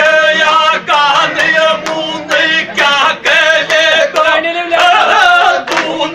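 Men singing a Gujjar dhamal folk song in loud, chant-like voices, with strokes on a large hand-held frame drum.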